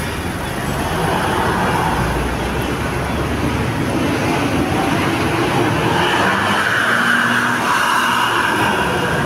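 Roadside traffic noise from passing motor vehicles: a steady rush of engine and tyre noise that grows a little louder in the second half.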